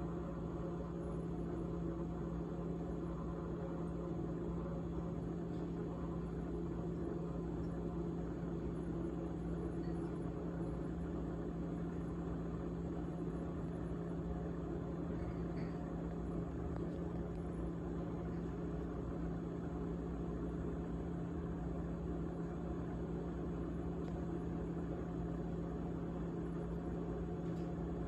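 GE GTH18XCTZRBB refrigerator running with a steady humming rattle, the rattling noise it is making. A couple of faint ticks come about halfway through.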